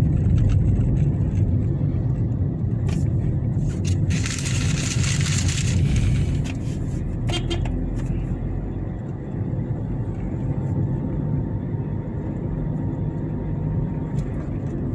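Low, steady rumble of a moving road vehicle heard from on board, with a rushing hiss for about two seconds some four seconds in.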